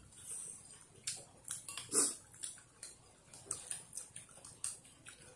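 People eating noodle soup with spoons from bowls: scattered short clicks of spoons on bowls and slurps, the loudest about two seconds in.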